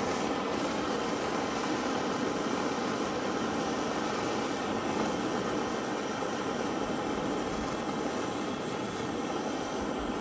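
Handheld butane torch burning with a steady jet-flame hiss, aimed at firewood.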